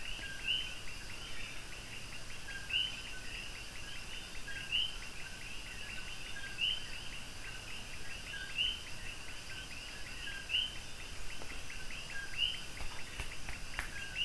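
Chorus of chirping night animals: a two-note call, a lower note followed by a higher one, repeats about every two seconds over a steady run of faster chirps.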